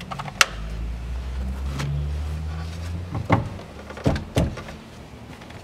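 Engine access cover in a van's cab floor being handled and pressed into place: a sharp click about half a second in, then three knocks later on, over a low steady hum that fades out about three seconds in.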